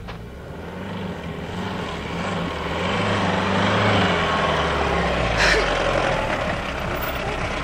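Mahindra Scorpio SUV's diesel engine pulling uphill on a loose dirt track, growing louder as it approaches and passes close by, with tyre noise on the gravel. A sharp click about five and a half seconds in.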